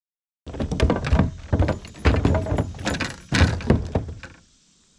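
A rapid, irregular run of loud thumps and knocks that starts abruptly about half a second in and stops a little after four seconds.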